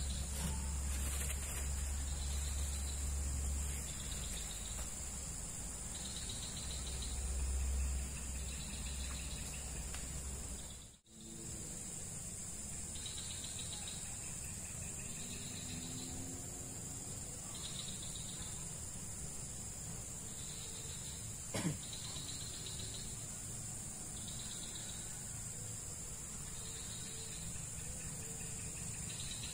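A steady high-pitched insect chorus, with a separate short insect call repeating every second or two. A low rumble sits under it in the first third, the sound drops out briefly about a third of the way in, and a single click comes about two-thirds through.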